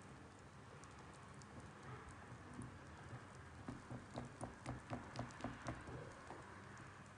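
Silicone whisk beating thick milk pudding in a stainless steel pot: faint, quick rhythmic ticks and squelches, about five a second, starting a few seconds in.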